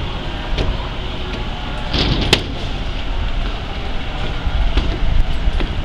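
Passing train rolling along the track: a steady rumble with scattered sharp clacks, the loudest about two seconds in.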